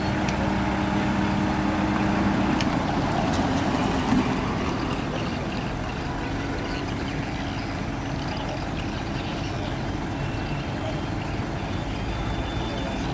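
Truck-mounted crane's engine running steadily while the boom holds a heavy pot on the hook. A steady hum in its note drops away about three seconds in, leaving an even engine rumble.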